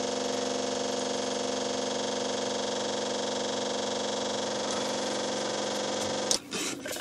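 Electric fuel pump running with a steady hum while priming the Chevy 6.2 diesel's fuel system, pushing fuel up to pressure after a leaking fuel hose was replaced. The steady hum breaks off about six seconds in, followed by a brief irregular rattle.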